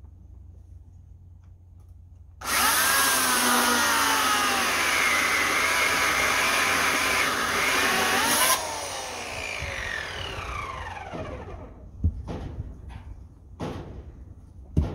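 Oregon CS1400 15-amp electric chainsaw starting about two seconds in and running at full speed through a log, its pitch dipping under the load of the cut. It is released after about six seconds and winds down with a falling whine, followed by a few knocks.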